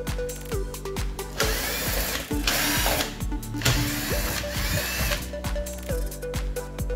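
Background music with a steady beat. From about one and a half seconds in until about five seconds in, a loud whirring noise sits over it, with a short break in the middle.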